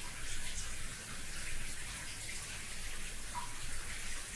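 Rain falling steadily: an even hiss of rain with faint scattered drip ticks.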